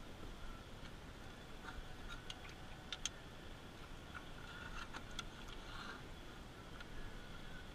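Faint scattered clicks and light knocks of fishing gear being handled in a canoe, a few bunched about three seconds in and again about five seconds in.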